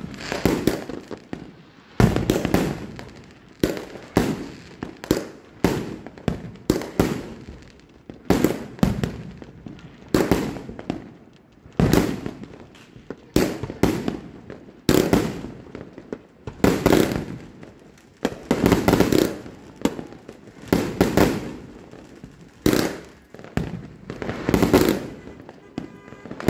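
A 100-shot salute firework cake firing shot after shot: each shell launches and bursts with a loud bang, about one bang a second and often two in quick succession.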